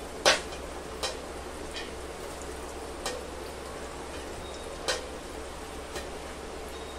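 Sweet potato fries deep-frying in hot oil: a steady sizzle with a handful of sharp pops, the loudest about a quarter-second in.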